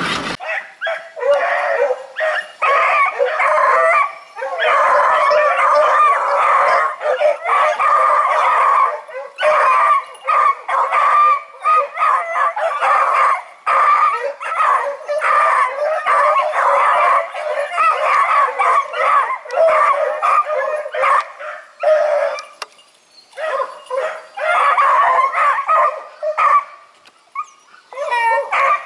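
Several kennel beagles barking and howling together, overlapping voices in a steady chorus with a couple of short lulls near the end.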